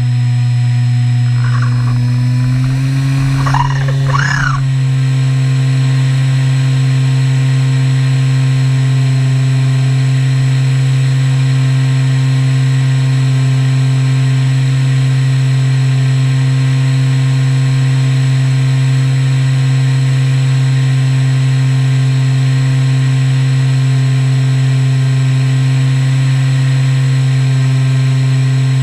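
Electric pusher motor and propeller of a Skywalker 1900mm FPV plane, heard from the onboard camera, droning steadily in flight. Its pitch steps up slightly about three seconds in, then holds even.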